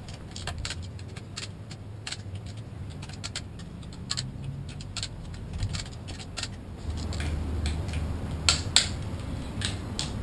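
Ratchet clicking in quick runs as the bolts on a gearbox casing are wound in and tightened, with a couple of louder sharp clicks near the end as the bolts are torqued.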